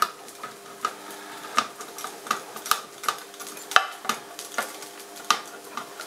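The cap lifter of a Victorinox Compact pocket knife being levered around the lid of a steel tin can to pierce it, giving short, sharp metallic clicks, roughly two a second and irregularly spaced.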